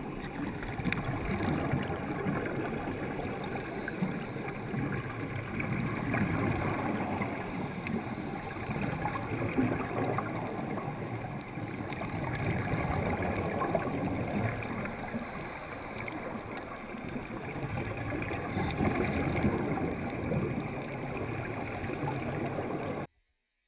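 Muffled underwater noise heard through a sealed camera housing: a steady rumbling gurgle of water and scuba divers' exhaled regulator bubbles. It cuts off abruptly near the end.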